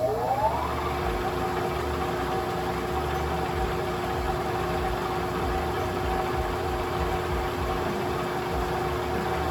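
Manual lathe under power during a thread-cutting pass: its drive whines up to speed in several rising tones in the first half-second, then runs steadily over a low hum. It is switched off at the very end and the whine starts to fall away.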